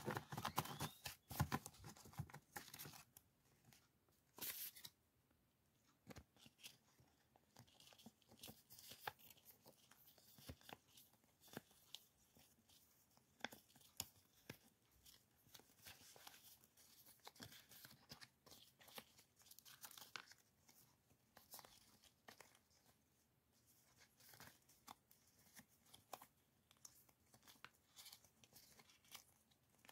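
Paper and sticker flakes rustling and crinkling in the hands. A stack of memo sheets is riffled in the first few seconds, then die-cut sticker flakes are shuffled with faint, scattered crackles.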